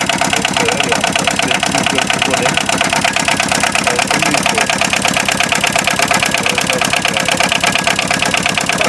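Kubota two-cylinder diesel engine of a microcar van idling steadily in neutral, a fast, even diesel clatter.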